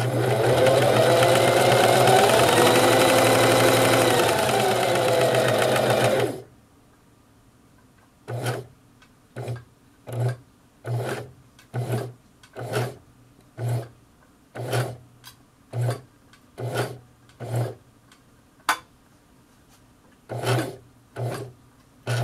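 Electric sewing machine stitching steadily at speed for about six seconds, then stopping and restarting in short bursts about once a second as a vintage-style foot pedal is pressed and released, showing fine speed control.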